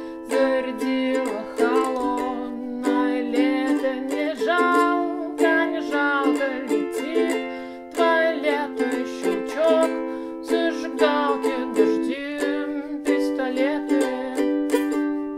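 Ukulele strummed steadily through the song's chord changes, the strokes fading away at the end.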